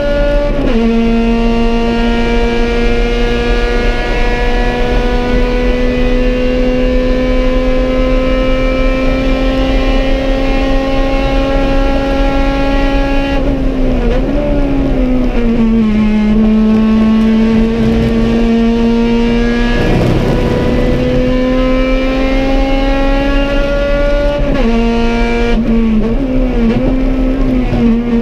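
Honda B18 four-cylinder race engine of an EG Civic, heard from inside the cabin under full throttle. It upshifts right at the start, then its pitch climbs slowly and steadily down the straight. Partway through it drops in steps as the driver downshifts for braking, climbs again, and near the end drops through several quick downshifts; a short rush of noise comes about two-thirds through.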